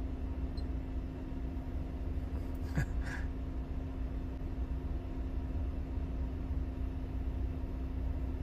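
Heavy truck engine running steadily at low revs: a low rumble with a faint steady hum. A brief faint noise comes about three seconds in.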